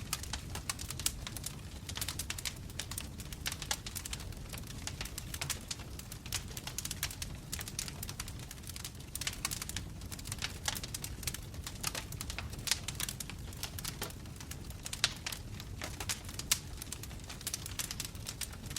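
Wood logs burning in a fireplace, crackling steadily with many small irregular pops over a low rumble of the flames, and a few louder snaps about 15 and 16.5 seconds in.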